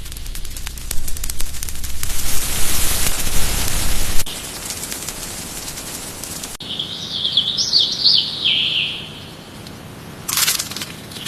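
Crackling clicks and a loud hiss that stops abruptly about four seconds in, then a bird chirping in one warbling, wavering call lasting about two seconds, and a few sharp cracks near the end.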